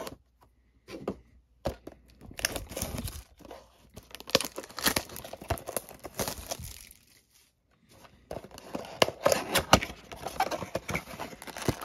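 Plastic shrink wrap being slit and torn off a cardboard trading-card box, with a few sharp clicks at first, then dense crinkling and tearing from about two seconds in. After a short pause near the end comes more crinkling and rustling as the cardboard box top is opened.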